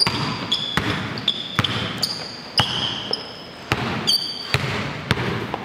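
Basketball bouncing during one-on-one play, a dozen or so irregular knocks, mixed with many short, high sneaker squeaks on the court.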